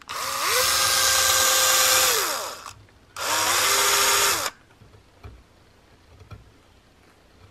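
A small high-speed electric rotary tool spins up, runs steadily for about two and a half seconds and winds down, then does a second, shorter run of about a second and a half. It is cutting into the wood of a rifle stock while the patchbox spring recess is inlet. A few faint ticks follow.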